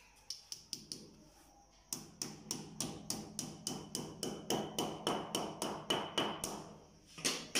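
Hammer tapping while PVC wall panels are fitted. A few scattered blows come first, then from about two seconds in a steady run of about four taps a second, broken by a short pause near the end before the tapping starts again.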